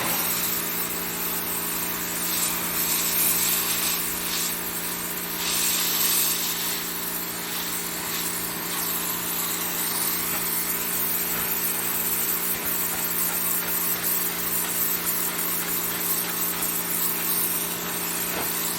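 Pressure washer running steadily: a constant motor hum under the hiss of the water jet, which swells briefly a few seconds in.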